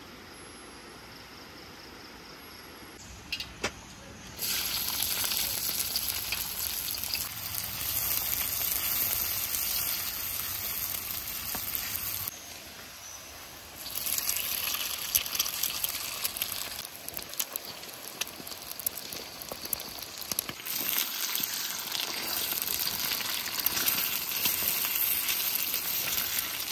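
Eggs with sliced red onion and chillies frying in hot oil in a wok, sizzling loudly with crackling. The sizzle starts about four seconds in, dies down for a moment around the middle, then flares up again as more egg is dropped into the oil.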